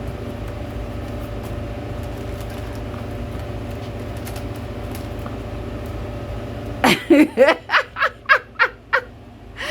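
A steady machine hum runs and then cuts off suddenly about seven seconds in, giving way to a woman's quick run of loud, rhythmic laughter, about three bursts a second.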